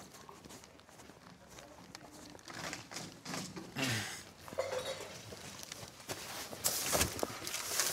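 Flattened cardboard rustling and scraping as it is carried and shoved into a car boot, louder near the end.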